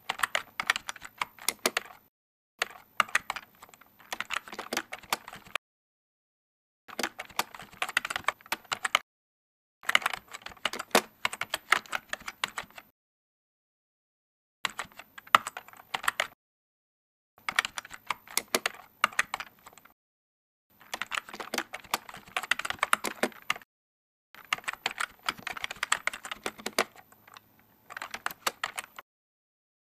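Computer keyboard typing: fast key clicks in about eight bursts of one and a half to four seconds, each broken off by dead silence.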